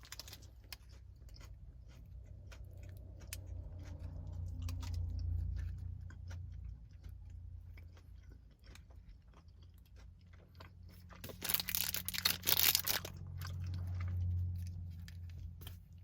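Close-up chewing of a soft, chewy chocolate chip protein bar: many small wet mouth clicks and smacks, with a louder crackling stretch about eleven to thirteen seconds in.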